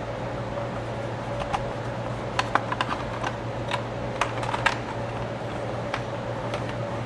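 Scattered light clicks and taps, about a dozen, from hands and a tool handling a slide projector's housing during disassembly. They are thickest in the middle, over a steady low hum.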